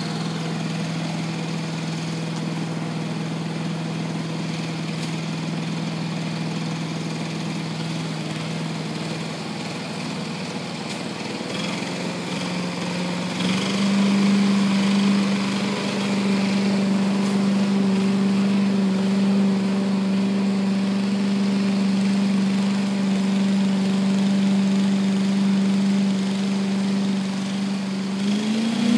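Small gas engine of a walk-behind leaf blower running steadily, then speeding up about halfway through to a higher, louder pitch and rising once more near the end.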